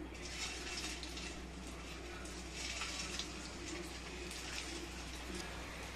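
Potato-and-rice-flour dough bullets deep-frying in hot oil in a steel kadai: a steady sizzle with small crackles as more pieces are dropped in.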